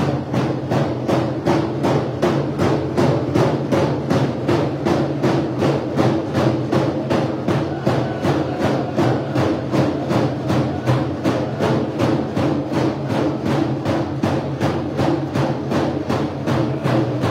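Dene hand game drummers beating large hide frame drums in a fast, steady beat, about three strokes a second, with voices singing the hand game song over the drums.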